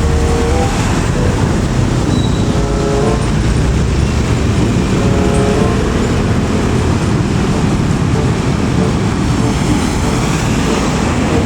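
Loud, steady roadside traffic noise from heavy vehicles passing close by, with a few short pitched tones over it in the first few seconds.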